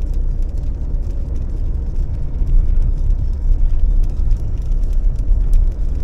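Car driving on a wet road, heard from inside the cabin: a steady low rumble of engine and tyre noise.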